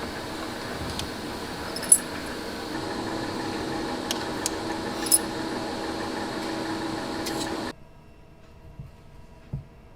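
Workshop ambience: a steady hum with several sharp clinks of small hard objects, the loudest about two and five seconds in. It cuts off abruptly near the end to a much quieter room hum with a couple of soft knocks.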